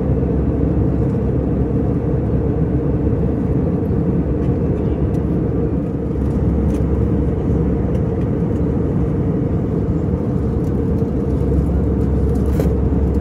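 Steady cabin drone of an Airbus A320-200 in cruise, heard from inside the cabin: engine and airflow noise, heaviest in the low end, without change.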